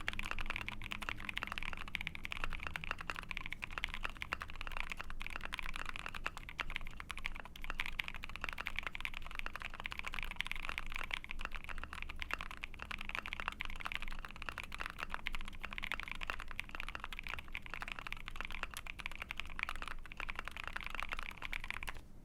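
Fast, continuous typing on a mechanical keyboard: an ai03 Vega with a POM plate, lubed Giant Silks linear frankenswitches (NK Silk bottom housing, Milky top housing, Giant V5 UHMWPE long-pole stem) and IFK OG keycaps. The owner finds the sound very dead and muted.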